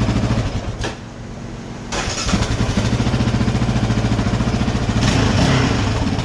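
Yamaha Raptor 700 ATV's single-cylinder engine idling, cutting out about a second in, then starting up again a second later and idling steadily.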